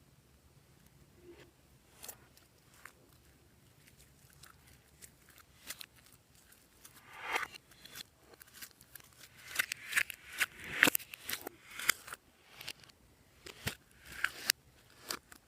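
Slime being worked by hand: sharp pops and crackles, sparse at first and coming thick and fast in the second half.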